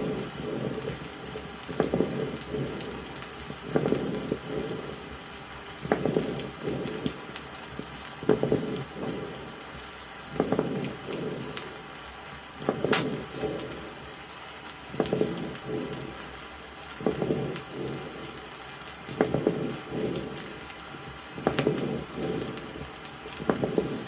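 Chest sounds heard through a stethoscope from a patient with a lung abscess: bronchial breathing with ringing, medium- and coarse-bubbling moist rales (crackles), rising and falling with each breath about every two seconds. It is played from an old vinyl record.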